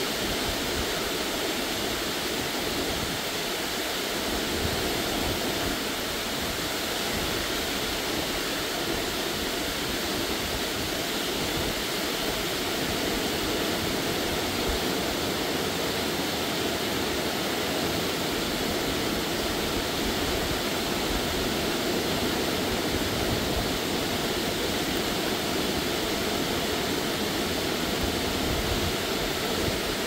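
DeCew Falls waterfall pouring, a steady, unbroken rush of falling water.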